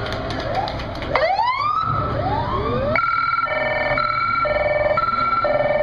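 Emergency vehicle siren: a couple of rising whoops about a second in, then a two-tone hi-lo wail switching between its two pitches every half second.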